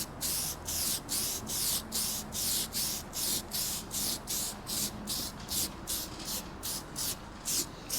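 UV headlight protection coating being sprayed onto a sanded headlight lens, hissing in quick short bursts about three a second, which stop near the end.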